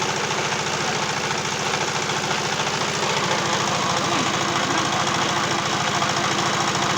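Pellet-making machine running steadily, a fast even mechanical beat over a continuous drone like an engine at idle.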